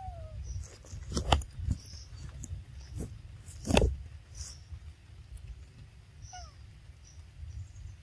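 Two short falling squeaks from a young macaque, one at the start and one about six seconds in, over a steady low rumble. Several sharp knocks or bumps come through, the loudest at about one and four seconds in.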